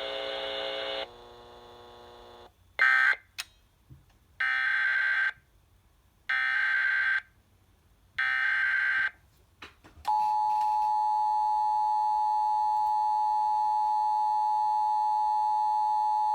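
Emergency Alert System tones: three data bursts of about a second each, a second apart (the SAME header), then from about ten seconds in the steady two-tone EAS attention signal. Before the bursts a steady buzzy tone cuts off about a second in, followed by a shorter data burst.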